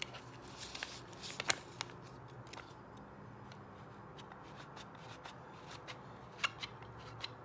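Light clicks and paper rustling from a banknote being fed into a clear plastic magic money-maker roller box as its knob is turned, scattered through, with a cluster about a second in and again near the end.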